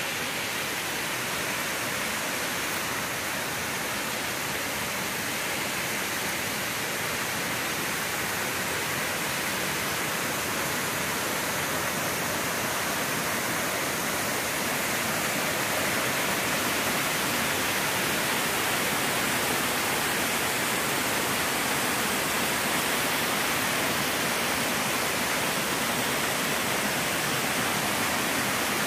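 Waterfall: a steady, even rush of falling water that grows slightly louder about halfway through.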